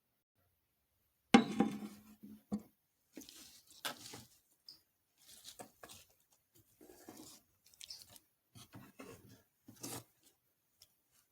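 Kitchen handling sounds: a loud knock about a second in, then scattered light taps, rustles and crackles with short pauses between them.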